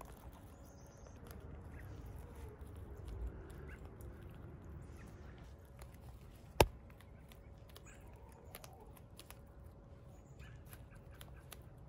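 Hens pecking and scratching at soil and grass while foraging, with faint scattered ticks and one sharp tap about six and a half seconds in.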